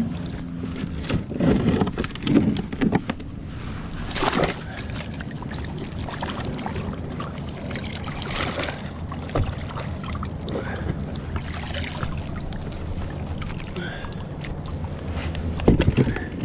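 Water sloshing and splashing against a plastic kayak, with a few heavy bumps and knocks as a muck-covered safe is shifted about on board. The loudest knocks come about one to three seconds in and again near the end.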